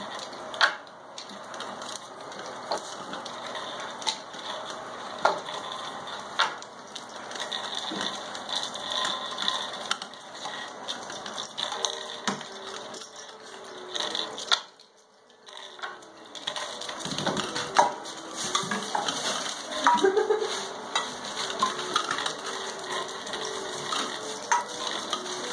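Light clattering and knocking of hanging plastic chains and toys as a litter of Brittany puppies play in a playpen, with scattered sharp clicks and taps. In the second half, faint high-pitched puppy whines.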